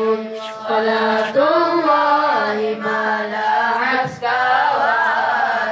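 Boys' voices singing a selawat (Islamic devotional song) together, unaccompanied, with long, wavering held notes.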